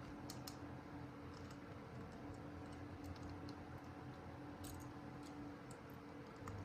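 Faint scattered clicks and taps of small smartphone parts being handled and pressed while a camera module is fitted and will not seat, over a steady low hum.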